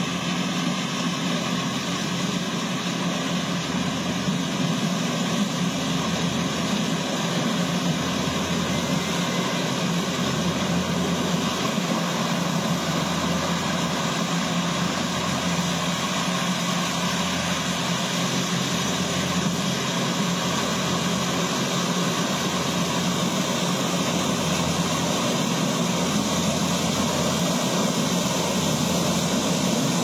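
Kubota DC70 crawler combine harvester's diesel engine running steadily under load while it cuts and threshes corn, growing slightly louder as the machine approaches.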